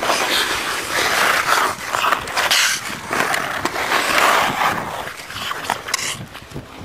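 Ice skate blades scraping and gliding over natural pond ice in repeated strides, with short sharp scrapes and clicks. The scraping eases near the end.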